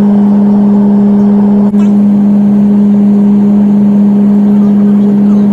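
Airliner cabin noise during landing: the jet engines and airflow make a loud, steady drone with a constant hum. The sound drops out very briefly about a second and a half in.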